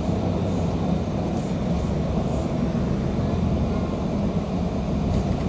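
Inside an MTA city bus under way: a steady low rumble of engine and road noise.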